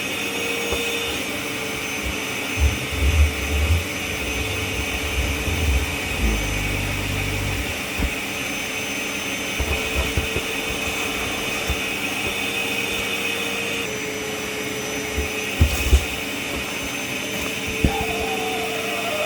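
Kärcher WD 6 P wet/dry vacuum cleaner running steadily with a high motor whine. Low knocks and thuds come through now and then, most strongly a few seconds in and again about two thirds of the way through.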